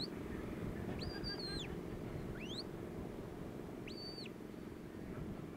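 A sheepdog handler whistling commands to his working dog: four short high-pitched whistles. Two are quick rising notes and two rise, hold and drop. A steady low rumble runs underneath.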